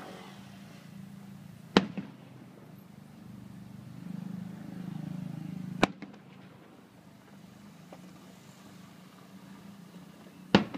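Aerial firework shells bursting: three sharp bangs about four seconds apart, the first and last each followed at once by a smaller crack. Under them is a low steady hum that swells before the second bang.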